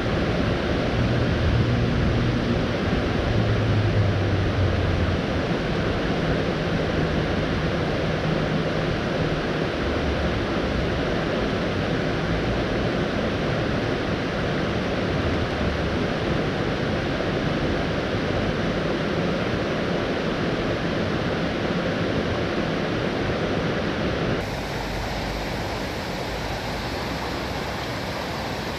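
Steady rush of river water running through broken white water. Near the end the sound changes abruptly and becomes a little quieter.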